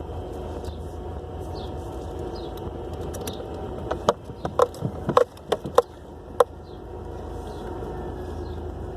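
Nissan Sentra running, with a steady drone over a low rumble: the growling noise that the owner attributes to the CVT transmission. About four seconds in, a quick cluster of sharp clicks and knocks stands out above it.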